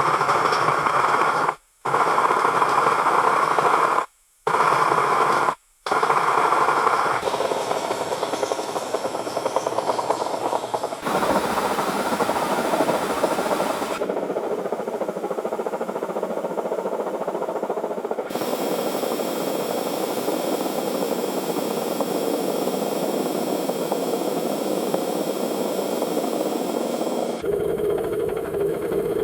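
Conveyor belt running with a steady rolling, rubbing noise. It cuts out briefly three times in the first six seconds, then runs on with its tone shifting abruptly every few seconds.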